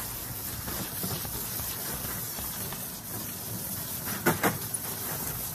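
Garden hose spray nozzle hissing steadily as water sprays onto a dog and splashes into a plastic kiddie pool, with two brief louder bursts a little over four seconds in.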